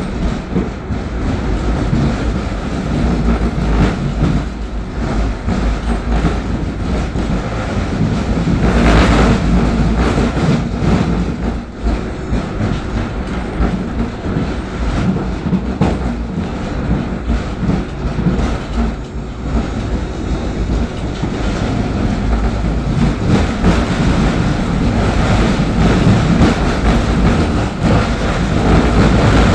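Tram running along its line, heard from inside the empty car: a steady rumble of the wheels on the rails, growing a little louder toward the end.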